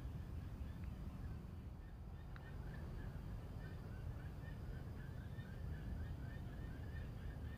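A fast run of short, evenly repeated animal calls starting a couple of seconds in, over a steady low rumble of wind or handling on the microphone.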